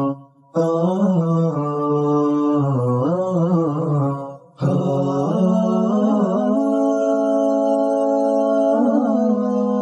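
Background music: a solo voice singing long held, ornamented notes in a chant-like style, with short breaks between phrases about half a second in and again about four and a half seconds in.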